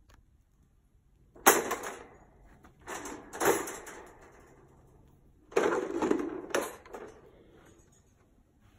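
Steel wire dog crate panels rattling and clanking as they are handled, in three clattering bursts: a sharp one about a second and a half in, another around three and a half seconds, and a longer double rattle near six seconds.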